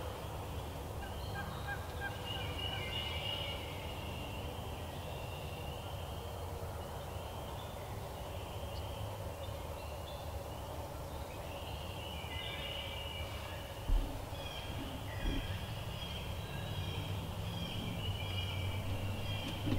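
Wild turkey gobbling in bouts, a couple of seconds in and again from about twelve seconds on, over a steady low rumble. A single dull knock about fourteen seconds in.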